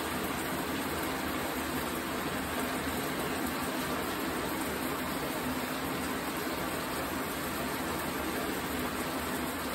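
A shower running: a steady, unbroken hiss of falling water.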